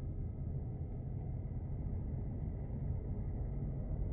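Steady low rumble of a car in motion: road and engine noise.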